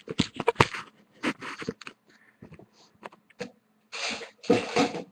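Irregular clicks, taps and rustling scrapes of small objects being handled on a tabletop.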